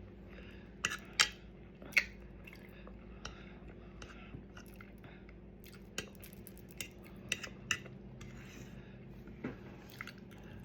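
Eating sounds: a utensil clicking against a dish several times, the sharpest clicks about one and two seconds in, with quiet chewing of corned beef between.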